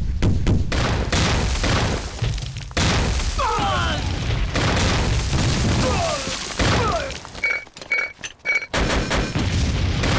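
Artillery barrage: field guns firing and shells bursting in a run of heavy explosions, with men shouting amid the shelling.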